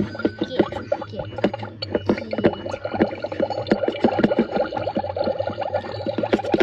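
Magic Mixies toy cauldron bubbling while the wand stirs in its bowl: a fast, dense run of bubbling pops over a steady low hum.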